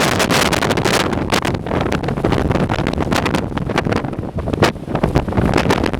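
Hurricane-force blizzard wind buffeting the microphone, with loud, irregular gusts that batter it many times a second.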